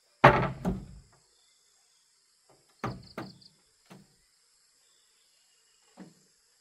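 A handful of sharp, irregular knocks on wood as roof boards are worked into place overhead, the first two the loudest, with a steady high insect drone behind them.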